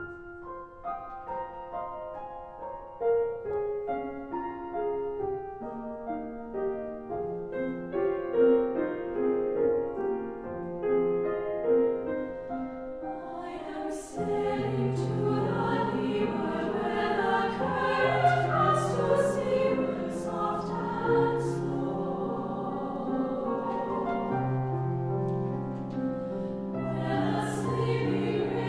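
Soundtrack music: a slow melody of held notes, joined about halfway through by a choir and a deep sustained bass.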